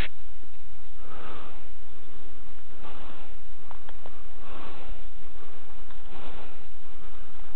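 A person breathing heavily close to the microphone, a breath about every second and a half, over a steady hiss, with a few faint ticks of twigs or brush.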